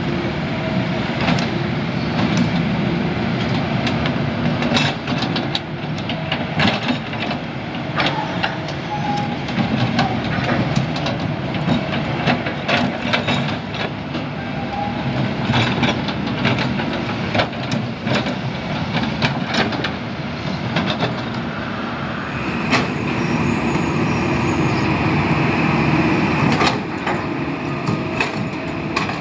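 Hydraulic excavators at work: diesel engines running steadily, with frequent knocks and clanks from the digging. For a few seconds near the end, a steady higher whine joins in.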